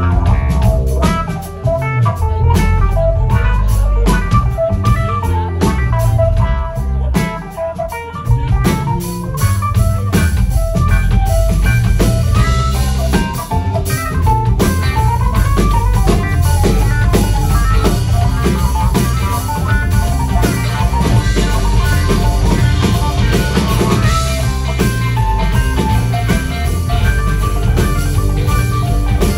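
Live band playing: electric guitars over bass guitar and a drum kit, with no words sung.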